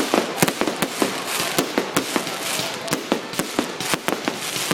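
Fireworks going off: many sharp bangs and crackles in quick, irregular succession.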